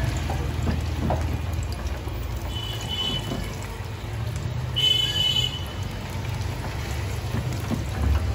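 Steady sizzling hiss of chicken deep-frying in oil, over a low rumble. Two short high-pitched tones sound about three and five seconds in.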